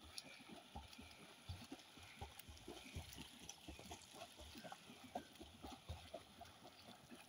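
Faint splashing from a swimmer's front-crawl arm strokes and kicks, heard as irregular soft thuds several times a second.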